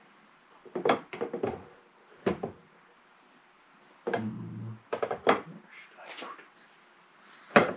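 Scattered sharp knocks and clicks of an air rifle and its parts being handled on a workbench, in short clusters with quiet gaps between.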